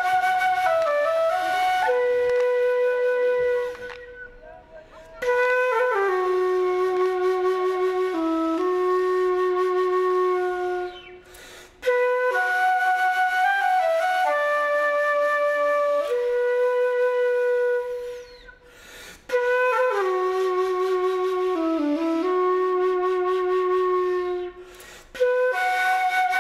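Instrumental music: a slow melody of long, held notes in phrases, each broken off by a brief pause about every seven seconds.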